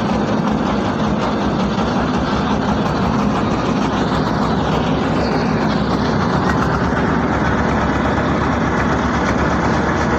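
A small river boat's engine running steadily under way, heard from on board, a constant loud drone with no change in speed.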